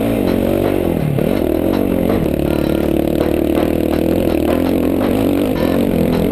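Dirt bike engine revving under the rider. The pitch drops about a second in, then climbs back and holds steady as the bike rides on.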